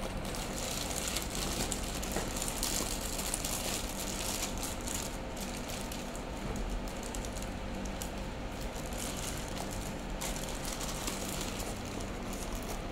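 Clear plastic wrapping crinkling and rustling in dense, irregular crackles as hands grip and pull it off a stack of foam tape rolls; the crackling thins out near the end.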